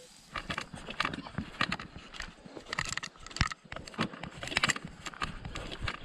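Footsteps of hikers walking on a dry dirt forest path strewn with leaves. They start a moment in and keep a steady rhythm of about two to three steps a second.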